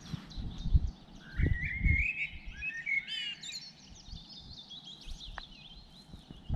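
Several small songbirds singing and chirping, with one louder warbling song starting about a second in and lasting a couple of seconds. A few low thumps in the first two seconds.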